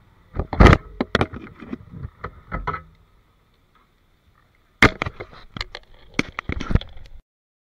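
Handling noise on an action camera: a rapid series of sharp knocks, taps and rubs as it is touched and adjusted by a gloved hand, in two bursts with a gap of about two seconds between.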